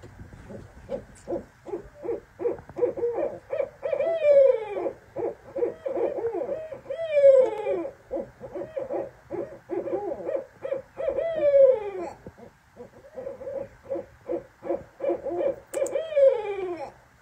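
A pair of barred owls calling together in a fast, excited run of hoots. Four times the run ends in a long, drawn-out call that falls in pitch. This is the pair's raucous duet.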